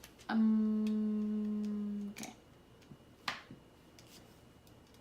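A single steady musical note, held for nearly two seconds with its upper overtones fading before it cuts off, then a couple of light clicks.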